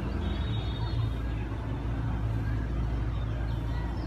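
Steady low outdoor rumble with no distinct event, with faint thin high tones now and then.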